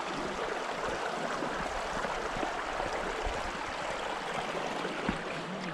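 Steady rushing hiss of running water, like a mountain meltwater stream.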